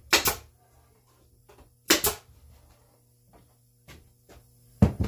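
Pneumatic nail gun firing nails into a wooden seat box: two sharp shots about two seconds apart, then a single sharp knock near the end.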